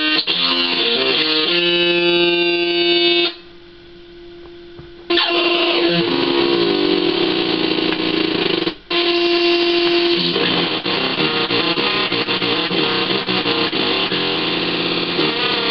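Electric guitar played through the NPN side of a breadboarded Schumann Two Face fuzz circuit on its N setting: fuzzed chords and notes ringing out. The sound drops away about three seconds in, comes back about two seconds later, and cuts out briefly near nine seconds.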